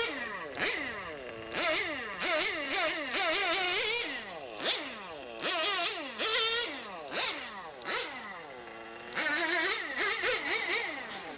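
Small nitro glow engine of a radio-controlled touring car fitted with a test muffler, driven hard around a track: a high buzzing note that climbs and falls away again about once a second as the throttle is opened and closed. The carburetor has just been reset, low-speed needle leaned and high-speed needle richened.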